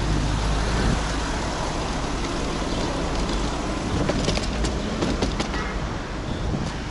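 Street traffic noise heard while riding along a road: a steady low rumble of passing car traffic, with a few sharp clicks about four to five seconds in.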